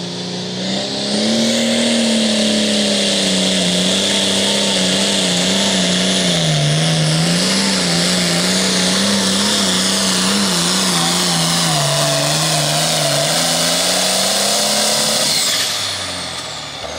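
Turbocharged diesel engine of a pro stock pulling tractor running flat out under load, its pitch wavering up and down as it works against the sled, with a hiss and whine over it. Near the end the throttle comes off, the engine drops away and a high whine falls in pitch as the turbo winds down.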